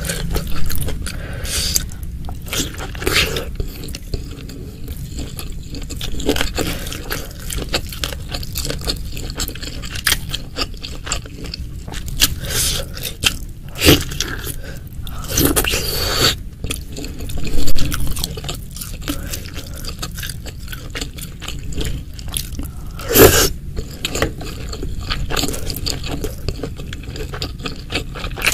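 Close-miked eating sounds of meatballs and beef ribs in spicy broth: irregular chewing, biting and wet mouth noises, with a few louder sharp sounds spread through.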